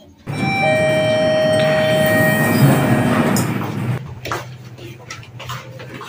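A chime ringing with several steady tones over loud background noise, starting suddenly just after the start and lasting about three seconds. It then gives way to quieter crowd chatter.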